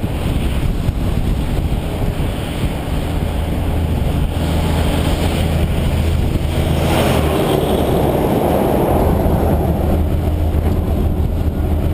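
Wind buffeting a bicycle-mounted camera's microphone over the steady hum of the bike rolling on the road. From about seven seconds in a louder rumble builds as a heavy truck comes up.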